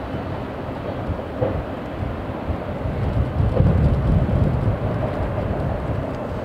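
Freight train's autorack cars rolling away on the rails: a steady low rumble that swells a little midway.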